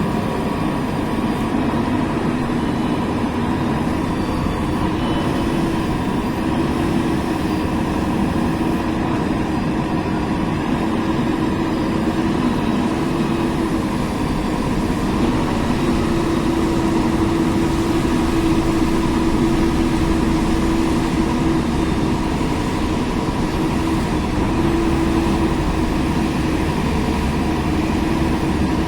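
JCB 3DX Super backhoe loader's diesel engine running steadily, with a droning tone that grows stronger at times.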